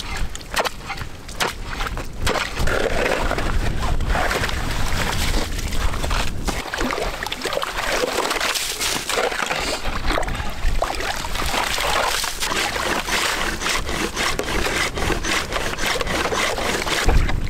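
Saw cutting through thick lake ice, repeated scraping strokes with slush and water sloshing in the cut.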